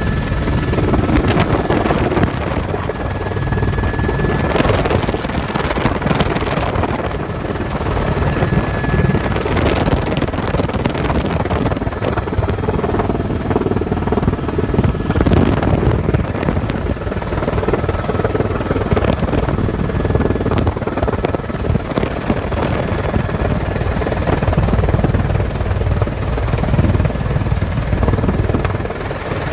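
Helicopter rotor and engine heard from inside the cabin in flight: a loud, steady drone throughout.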